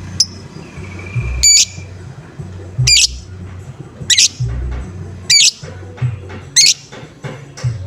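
Lovebird giving a string of harsh 'ngoek' squawks, about one every second and a bit, six or seven in a row, over a steady low hum.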